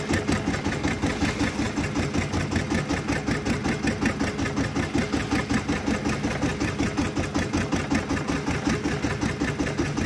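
Boat engine running steadily at low revs, with a regular pulse of roughly five beats a second.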